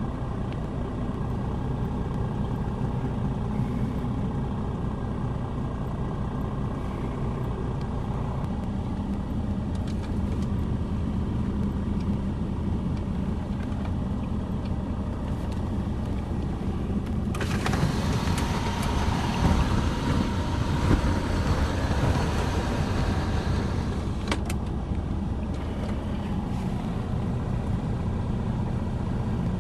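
Steady low rumble of a motor vehicle running. Past the midpoint a loud hissing rush starts abruptly and cuts off about seven seconds later.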